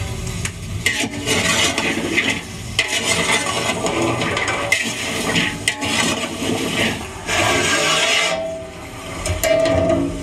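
Chopped okra being mixed in a bowl by hand and with a spoon: irregular rustling and scraping with a few sharp clicks.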